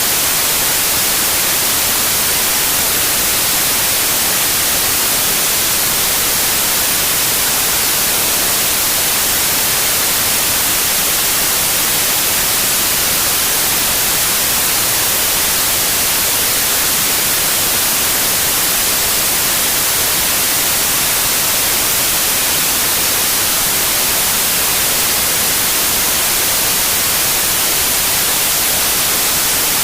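Steady white noise: an even, unchanging hiss, strongest in the high range.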